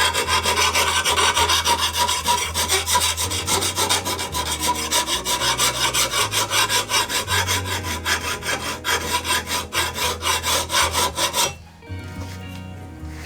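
Drill-powered sharpening stone grinding along the steel edge of a lawnmower blade clamped in a vise, a steady rasping with a constant whine and a rapid stroking texture, putting a new cutting edge on a dull blade. The grinding stops abruptly near the end.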